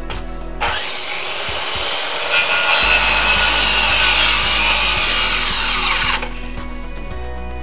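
Power saw cutting through wood, starting about half a second in and stopping sharply about six seconds in, over background music.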